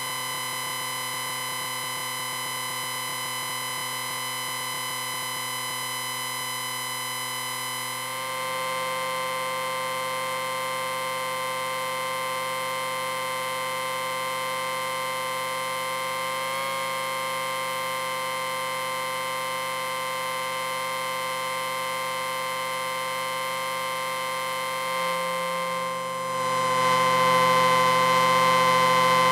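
Amplifier whine: a steady electronic tone with many pitches sounding together. It steps a little louder about eight seconds in and clearly louder near the end.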